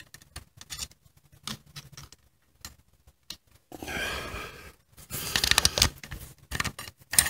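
Clutch plates of a 2012 Kawasaki Ninja 650 being worked out of the clutch basket by hand, giving scattered small metallic clicks and scrapes. A busier stretch of scraping runs from about four to six seconds in.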